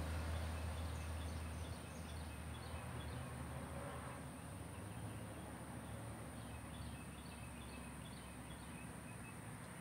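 Outdoor ambience: a passing vehicle's engine fades away over the first couple of seconds. Faint clusters of short high chirps follow over a steady high-pitched tone.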